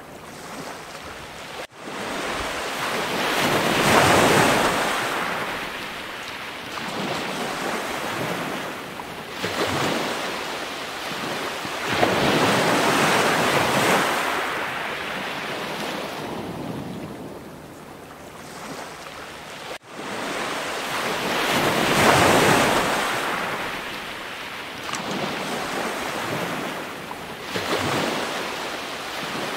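Ocean surf: waves washing in and ebbing away in slow swells of noise, each building for several seconds, with two brief drop-outs, about two seconds in and again about two-thirds of the way through.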